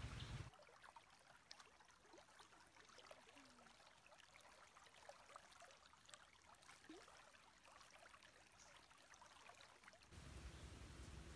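Faint trickling of a shallow stream running over stones, with scattered small ticks. A louder low rumble stops half a second in and comes back near the end.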